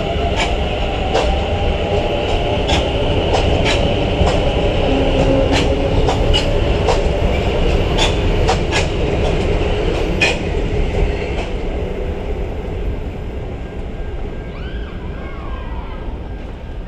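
Electric multiple-unit commuter train running past along a station platform, a steady rumble with its wheels clicking over the rail joints one or two times a second. The clicking stops about eleven seconds in and the rumble fades away as the train moves off.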